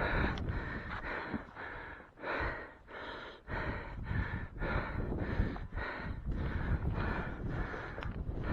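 A hiker's fast, heavy breathing, about two breaths a second, from the exertion of scrambling up steep rock.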